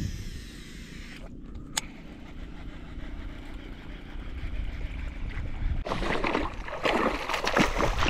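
A boat's low steady rumble with water noise. From about six seconds in comes irregular loud splashing, as a hooked giant snakehead thrashes at the surface near the boat.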